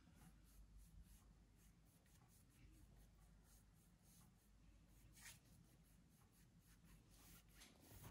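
Very faint, repeated scratchy strokes of a large paintbrush working oil paint across a cotton canvas, one stroke a little louder about five seconds in.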